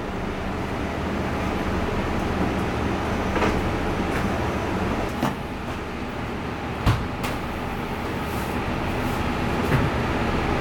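Steady low mechanical hum over a haze of background noise, with a few short knocks scattered through it, the sharpest two close together a little past the middle.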